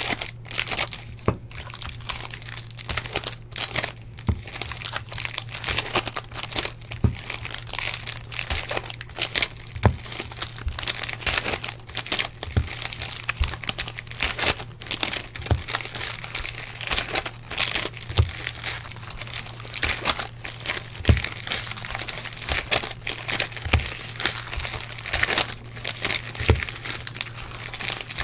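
Foil wrappers of Topps Chrome jumbo baseball-card packs crinkling and tearing as they are ripped open by hand, over a steady low hum.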